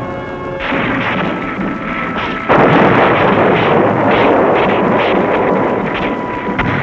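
Explosion and gunfire over background music: a sudden loud blast about two and a half seconds in, then a run of sharp shots.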